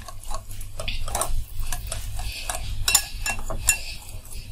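Wire whisk beating besan (gram-flour) batter in a steel bowl, its wires clicking and scraping against the bowl at a quick, uneven rhythm as lemon juice is mixed in for dhokla.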